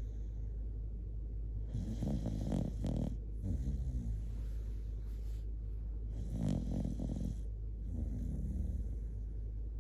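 Shiba Inu dog snoring in its sleep, loud enough that viewers are asked to turn the volume down. There are two slow breathing cycles, each a louder snore followed by a softer one.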